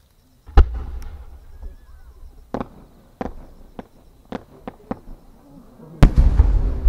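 A 10-gou (shakudama, roughly 30 cm) firework shell fired from its mortar with a sharp bang about half a second in. A few scattered pops follow as it climbs with its rising tail. Near the end comes the burst, the loudest bang of all, followed by a low rolling rumble.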